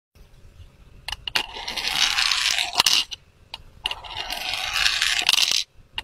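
Aerosol spray-paint can hissing in two long bursts of about a second and a half each, with a few sharp clicks around them.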